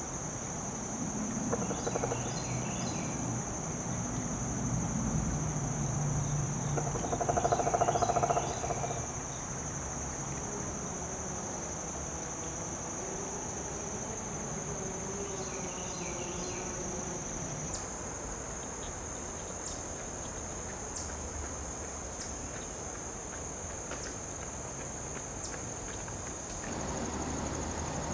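Crickets trilling in a steady, high-pitched, unbroken drone, with a few short chirps from other small creatures and a louder, lower sound for a couple of seconds about a third of the way in.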